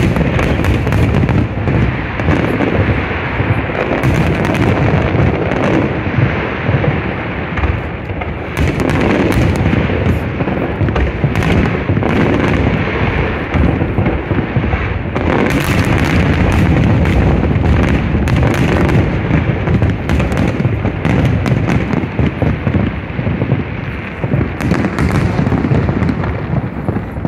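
Aerial fireworks bursting in a dense, continuous barrage of booms and crackles.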